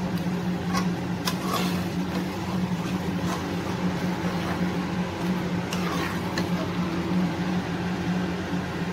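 Steel spatula stirring thick pav bhaji in a metal pan, scraping and clacking against the pan several times, over a steady low mechanical hum.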